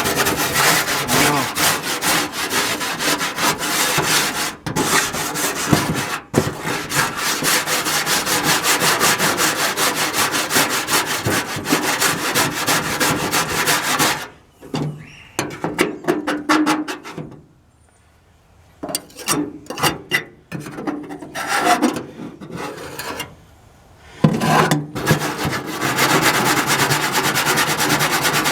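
Steel wire brush wheel, clamped in vise grips and worked by hand, scrubbing caked-on grime off the bare aluminum of a pan: a fast, continuous scratchy rasping. Partway through it breaks into short separate strokes with pauses, then runs continuously again near the end.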